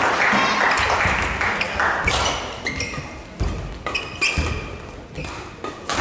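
Badminton rally: sharp racket-on-shuttlecock hits about every second, with shoes squeaking on the court floor between them. Before that, crowd noise in the hall dies away over the first two seconds.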